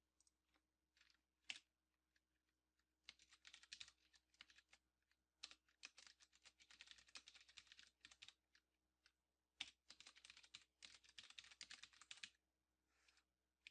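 Faint typing on a computer keyboard: quick runs of keystrokes with short pauses between them, after a single keystroke about a second and a half in.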